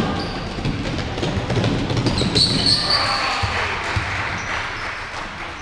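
A basketball bouncing on the court during a game, with several sharp bounces and a short high squeak a little over two seconds in.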